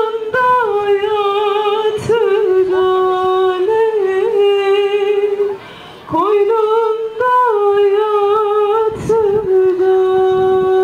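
Folk dance music: a single wavering melody line with long held notes and sliding pitches, sung or played on one reed-like instrument. It breaks off briefly about halfway through, and the same phrase starts again.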